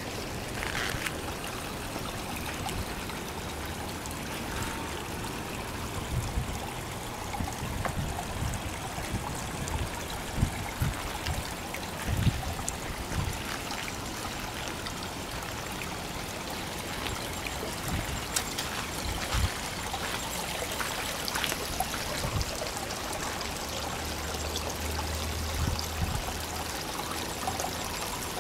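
Steady trickle and splash of water falling into a garden koi pond, with a few brief low bumps.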